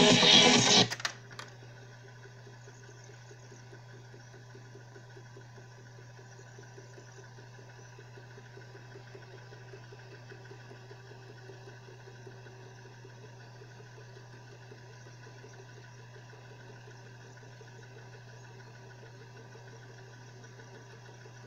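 Music played from cassette on a Sharp GF-5454 boombox cuts off about a second in with a click. The tape then runs on through a blank stretch between songs: a steady low hum with faint tape hiss and the quiet running of the cassette mechanism.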